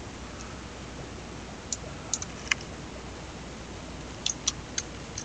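Computer mouse and keyboard clicks: a few sharp clicks about two seconds in, then a quicker run of keystrokes near the end, over a steady low background noise.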